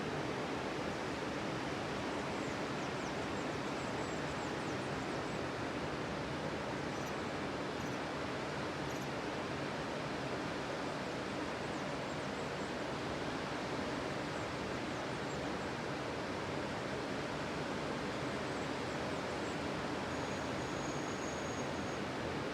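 Ocean surf on a beach, heard as a steady, even wash of noise with no separate wave crashes standing out.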